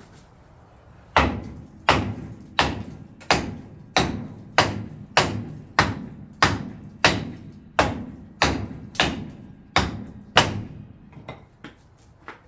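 Hammer blows on a seized front brake drum: about fifteen heavy strikes at an even pace of roughly three every two seconds, each ringing briefly, then a few lighter taps near the end. The drum is stuck on the hub and is being beaten to loosen it.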